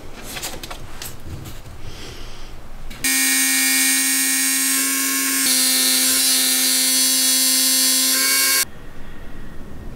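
MTR-42 trim router mounted under a router table, running at speed with a steady high-pitched whine while a small plywood part is routed against a template; the whine starts and stops abruptly, with a slight shift in pitch about halfway through. Before it, paper is peeled and handled.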